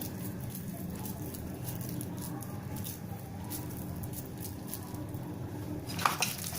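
Soft squishing and light patting of hands rolling boiled, mashed potato into balls, with faint scattered clicks and a sharper knock about six seconds in, over a low steady hum.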